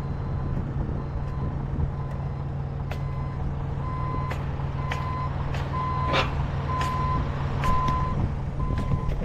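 Forklift's reversing alarm beeping about once a second over a steady diesel engine hum, the beeps getting louder from about four seconds in as the machine comes closer. Several sharp clicks or knocks are heard in the second half.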